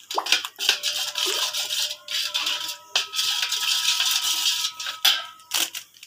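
A metal spoon stirring and beating yogurt in a stainless steel bowl: fast scraping and clinking against the bowl's sides, with the bowl ringing at a few steady pitches. The stirring stops just before the end.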